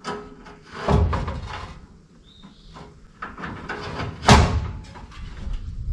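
Knocks and clatter of car parts being handled and fitted, with one sharp knock a little after four seconds in.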